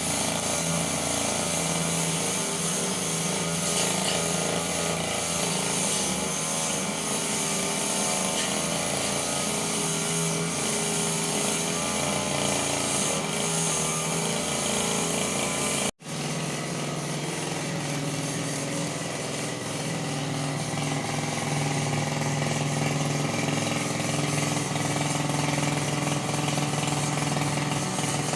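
Petrol brush cutter engine running steadily at working speed. It breaks off for an instant about halfway, then carries on with a steadier, deeper hum.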